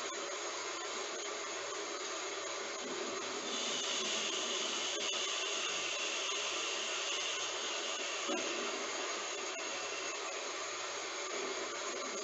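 Heavy rain falling as a steady hiss with faint scattered patters. It grows a little louder and brighter about three and a half seconds in, then eases back near the end.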